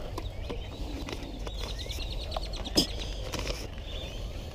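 Birds chirping and calling, including a quick run of repeated notes, over paper envelopes being handled, with one sharp click a little before the three-second mark.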